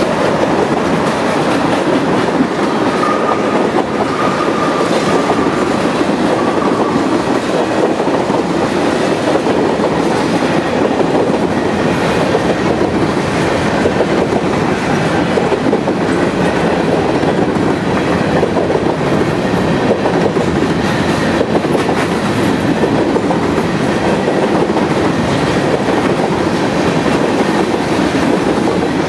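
Loaded freight cars, tank cars and then covered hoppers, rolling slowly past: a steady rumble of steel wheels on rail, with a faint wheel squeal a few seconds in.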